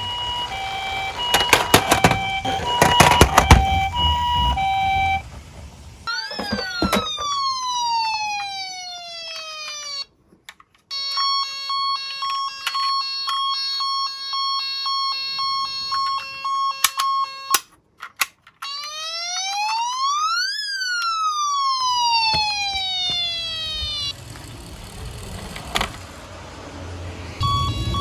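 Battery-powered toy ambulance sirens: an electronic hi-lo two-tone siren over the rattle and clicks of a toy car rolling down a wooden slope. This is followed by falling and rising electronic whistle glides and a steady pulsing electronic tone. Near the end the rolling noise returns and the two-tone siren starts again.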